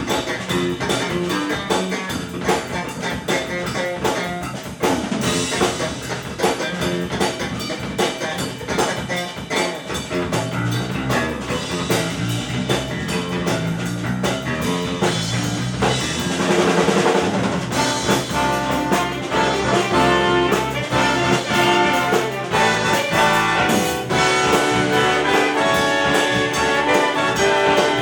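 Jazz-funk big band playing live: brass section with trumpets and trombones over drum kit. The band gets louder and fuller about two-thirds of the way through.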